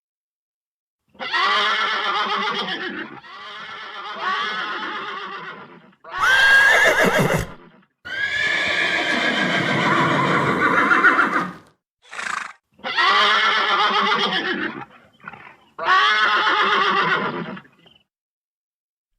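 Horse neighing again and again: about six whinnies, each one to four seconds long, with a few short calls between them.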